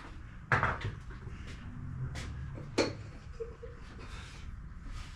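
Oil extractor pump running and slurping as its suction hose is pulled out of the engine's dipstick tube and held up, drawing air and the last oil, with scattered clicks and two sharp knocks about half a second and almost three seconds in.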